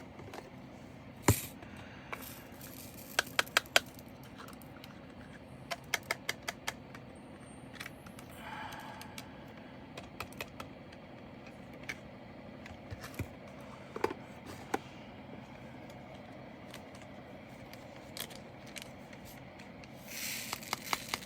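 Small plastic resin diamond-painting drills clicking and clattering as they are picked off the canvas and dropped into bags. The clicks are scattered and sharp, several come in quick runs, and a brief rustle comes near the end.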